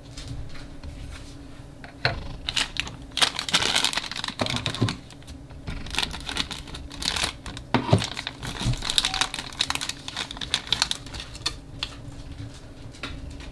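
A crinkly plastic packaging pouch being handled and cut open with scissors: dense, irregular crinkling and crackling from about two seconds in until near the end.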